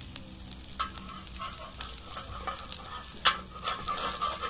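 Egg-coated bread sandwich sizzling in oil on an iron tawa, with a metal spatula scraping and clicking against the pan as it is slid under the sandwich; the sharpest click comes about three-quarters of the way through.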